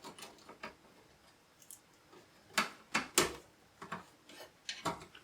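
Scattered sharp metallic clicks and ticks of a Phillips screwdriver working screws out of a metal PC case's drive bay, the loudest few about two and a half to three seconds in.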